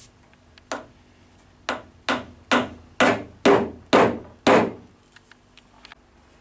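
Hammer driving a wooden dowel plug into a countersunk screw hole in timber: eight sharp blows, a single one first and then seven at about two a second, growing louder.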